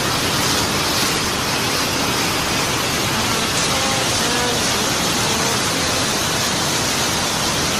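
White-water rapids at the top of a waterfall pouring over rock slabs: a steady, dense rushing noise at an even level, the water's 'kal-kal' gurgle.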